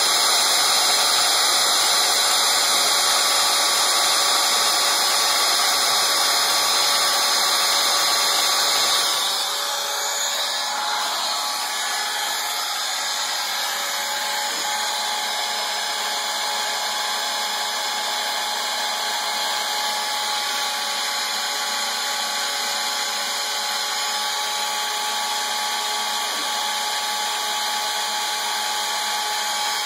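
Router spindle on a homebuilt CNC machine running steadily as its fine fluted bit carves a relief into wood. About nine seconds in the sound drops a little and loses its low end, then carries on steadily.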